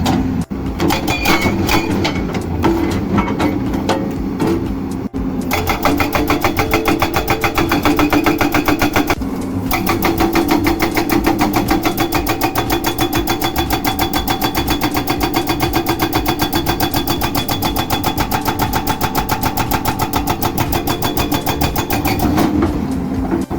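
Hydraulic breaker on a BDMG BD9225 excavator hammering in a rapid, steady rhythm, with the excavator's engine running under it. The hammering settles in about five seconds in and breaks off briefly twice, about nine seconds in and near the end.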